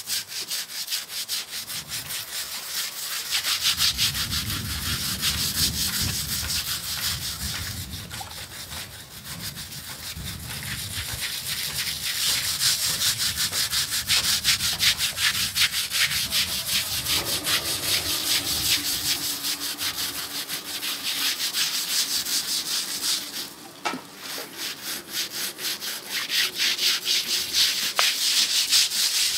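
Fast, steady scraping strokes kept up almost without pause, with a short break about 24 seconds in.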